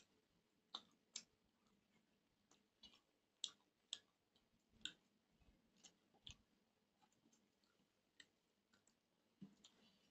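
Faint, scattered wet clicks and smacks of a man eating with his hand: mouth sounds of chewing picked up by a lapel microphone on his chest, with fingers working rice and curry on a steel plate. There are about fifteen irregular clicks in ten seconds.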